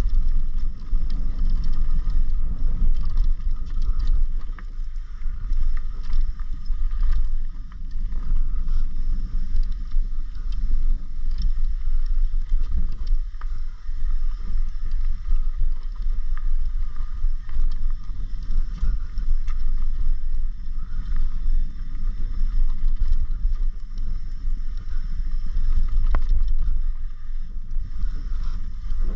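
Downhill mountain bike running fast down a dirt and rock trail, heard from an on-board camera: a heavy, continuous low rumble of wind and tyres on the microphone, with frequent rattles and knocks from the bike over roots and stones.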